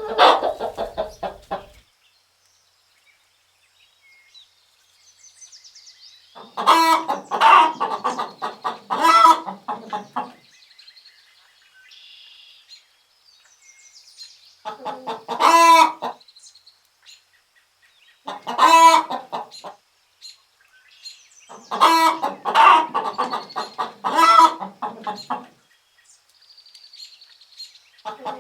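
Chickens clucking in repeated bouts of rapid calls, each bout lasting one to a few seconds, with quiet gaps between. Faint high chirps sound in the gaps.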